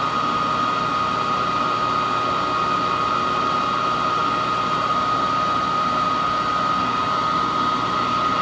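Hoover Model 28 vacuum cleaner running at maximum, drawing air through its attached hose: a steady rush of air under a steady high whine.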